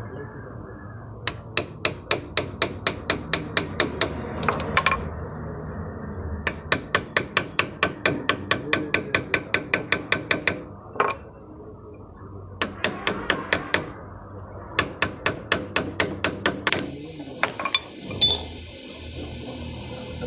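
Quick, even taps like a hammer striking, about four or five a second. They come in several runs of a few seconds each with short pauses between.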